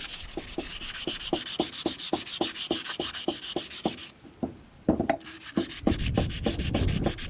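Tapered bronze plug of an old Wilcox Crittenden seacock being wet-sanded by hand to take off corrosion: quick back-and-forth rubbing at about five strokes a second. The rubbing stops briefly about four seconds in, a knock follows, and the sanding resumes.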